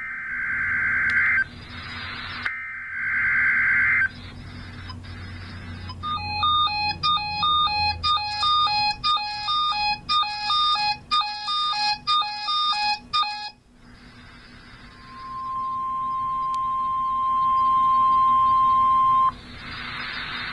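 Emergency Alert System broadcast tones. First come two short, harsh digital data bursts of the SAME header. Then a rapid run of electronic beeps at several pitches lasts about seven seconds, followed by the steady single-pitch weather radio alert tone, held for about four seconds.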